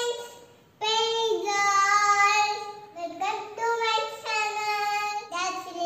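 A young girl singing in a high, clear voice, with long held notes in about three phrases and short breaks between them.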